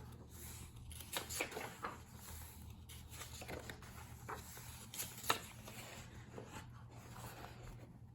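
Paperback workbooks being handled: scattered soft rustles, taps and page sounds, over a faint steady low hum.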